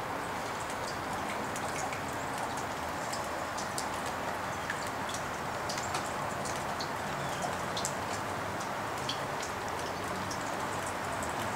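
Steady rain falling, a constant hiss with many small, sharp drop ticks scattered through it.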